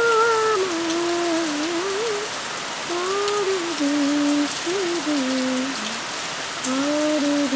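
Heavy rain falling steadily, a dense even hiss of drops on water. Over it a woman's voice sings a slow melody in long, gliding held notes.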